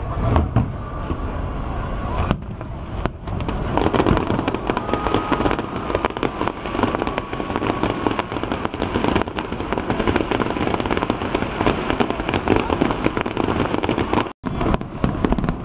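Fireworks display: a continuous barrage of bursts and crackling, with crowd voices underneath. The sound cuts out for a moment near the end.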